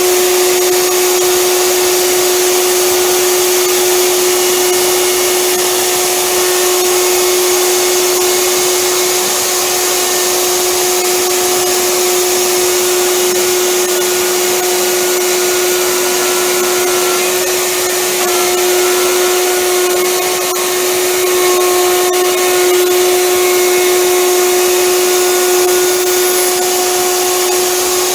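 Electric plunge router cutting into a solid oak worktop, its motor running steadily at high speed with a constant high hum over the cutting noise, dipping slightly in level now and then.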